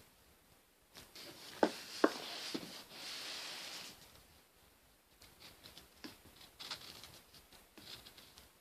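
Handling noises from vacuum cleaner parts: two sharp clinks with a brief ring about a second and a half and two seconds in, a scraping rustle, then scattered light ticks and taps.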